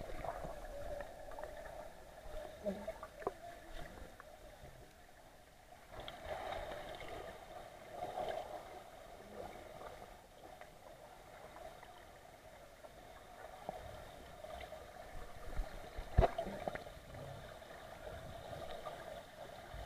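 Muffled underwater sound of a swimming pool: a faint steady hum and wash of water, with a few sharp knocks or clicks, the loudest about sixteen seconds in.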